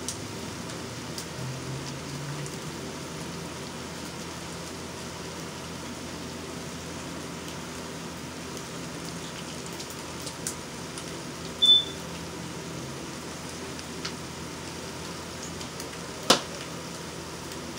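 Steady hum of a running kitchen appliance, with one short high beep about twelve seconds in and a sharp click a few seconds later.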